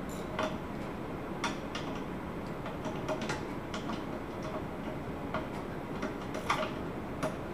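Scattered light clicks and taps of hand tools and metal parts being worked on a golf cart's wiring, at irregular spacing over a steady background hiss, cutting off suddenly at the end.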